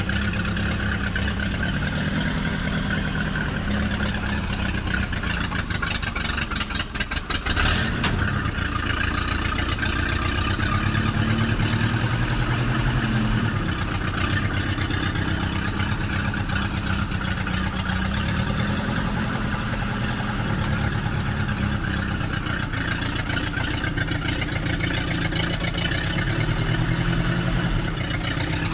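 An engine running steadily, its pitch stepping up and down between idle and light revving, with a short, sharp burst of noise about seven and a half seconds in.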